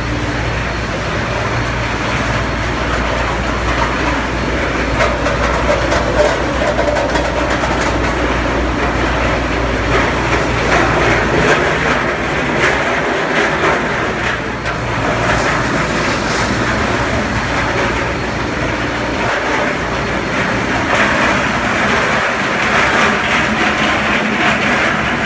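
Steady running noise of a snack extrusion production line's machinery. A low hum is strong for the first half and drops away about halfway through.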